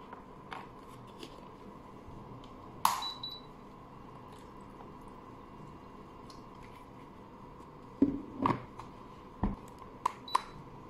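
Plastic clicks and knocks of a white aroma diffuser's cover and water tank being handled: one sharp click about three seconds in, then a cluster of knocks and clicks near the end as the cover is set back on the base. A faint steady high whine runs underneath.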